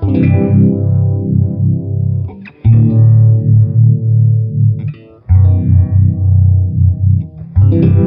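Electric guitar chords strummed through a Mattoverse Just A Phase phaser pedal: four chords, about two and a half seconds apart, each left to ring, with the phaser's fast sweep running through them.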